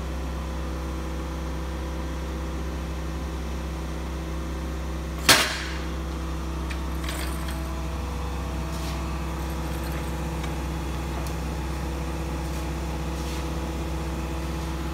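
A forklift runs with a steady hum while it lowers a stripped Detroit Diesel 6-71 engine block onto a tire. About five seconds in comes one sharp, loud clank as the block shifts, followed later by a few faint clicks.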